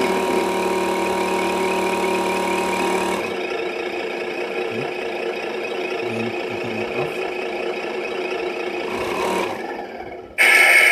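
Simulated truck engine sound from an entry-level GT Power RC sound module's speaker, idling steadily after the start-up sequence. Near the end a louder, higher-pitched tone cuts in.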